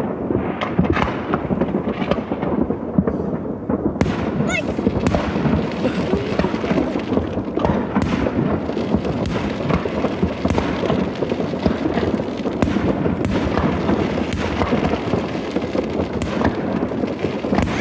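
Many New Year fireworks going off at once: a continuous rumble of booming bursts and crackling from rockets. Sharper cracks grow thicker from about four seconds in.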